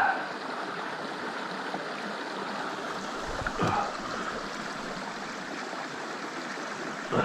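Small creek running steadily over rocks, a continuous even wash of water.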